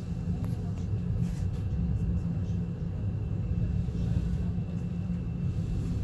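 Steady low rumble of an ES2G Lastochka electric multiple unit, heard from inside the passenger car while running, with a faint steady high tone over it.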